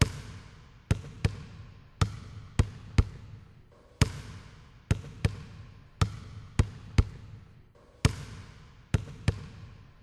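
Sharp knocks with short ringing tails in a repeating pattern, three about every two seconds.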